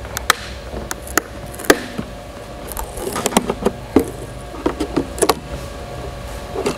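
Scattered sharp clicks and taps of a flathead screwdriver and fingers prying at the bottom cover plate of a Panasonic Toughbook CF-30, which does not come free because one screw is still in. A steady background hum runs underneath.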